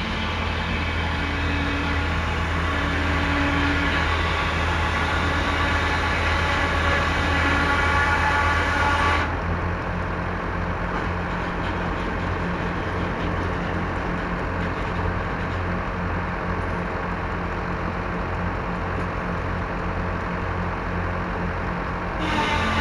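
Engine running steadily with an even low hum. About nine seconds in, a layer of higher-pitched mechanical noise cuts off abruptly, leaving the engine alone, and it comes back near the end.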